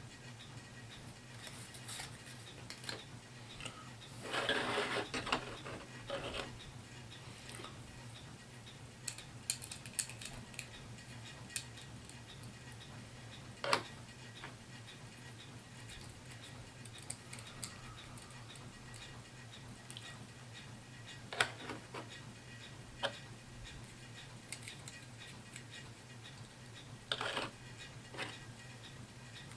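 Scattered clicks and taps of small plastic miniatures and packaging being handled on a table, with a longer rustle about four seconds in and another near the end, over a low steady hum.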